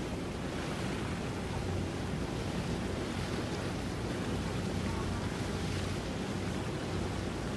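Motor yacht cruising past at low speed: a low, steady engine hum under the wash of its wake and wind on the microphone.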